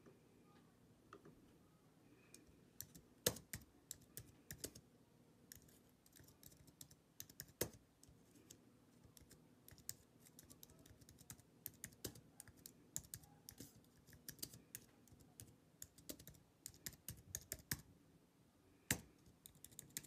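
Typing on a computer keyboard: irregular key clicks starting a couple of seconds in, then one stronger click near the end.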